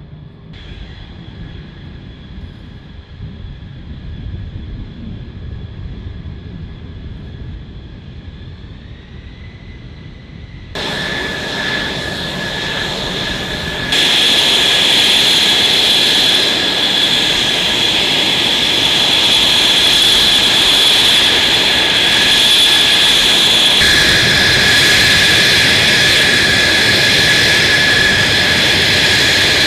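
F-35 Lightning II jet engine running with a steady high whine over a roar of noise. It jumps suddenly louder about a third of the way in and again just under halfway, then stays loud.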